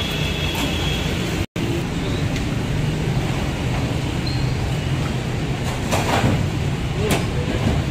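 Steady rumble of busy road traffic and street bustle, cutting out for a moment about a second and a half in. A few short, sharper sounds come near the end.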